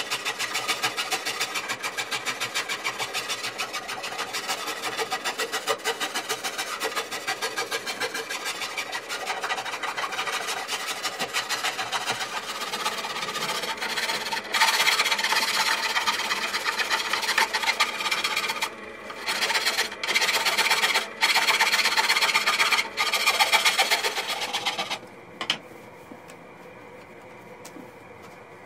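A hand rasp worked back and forth along the rough live edge of a zelkova slab: a fast, even scraping of steel teeth on wood. It gets louder in the second half, with a few brief pauses, and stops about 25 seconds in.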